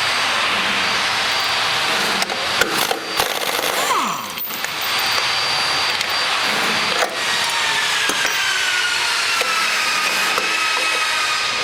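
Power tool running steadily to undo the bolts on the mixer auger's bottom bearing, with a few sharp clicks.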